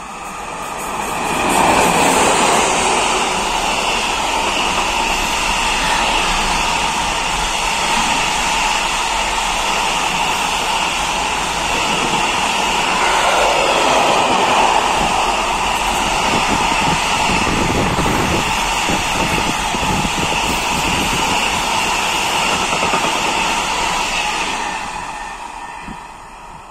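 Container freight train hauled by an electric locomotive passing at speed: a loud steady rumble and clatter of wheels on the rails. It swells about two seconds in as the locomotive goes by, and fades near the end as the last wagons pull away.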